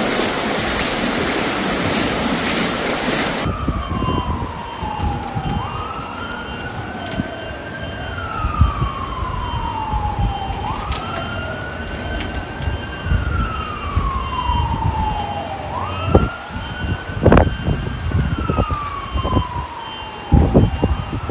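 Floodwater rushing through an underground car park for the first few seconds. Then a distant siren wails, rising quickly and falling slowly about every five seconds, over gusts of wind buffeting the microphone.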